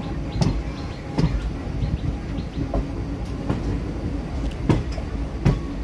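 Indian Railways passenger coach running along the track, heard from its open doorway: a steady rumble with sharp knocks of the wheels passing over rail joints, about one a second.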